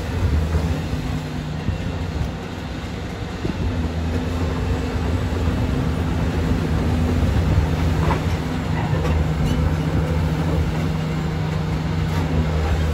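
Caterpillar 330D2 excavator's diesel engine running steadily under load as the machine works, with a few light knocks about two-thirds of the way through.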